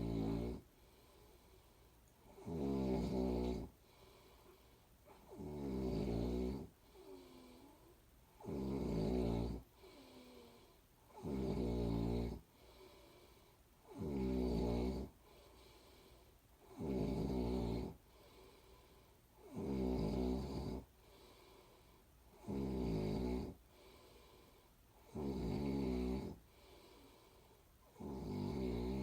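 A person snoring in a steady rhythm, about one rattling snore every three seconds, each lasting about a second. Softer breathing can be heard between the snores.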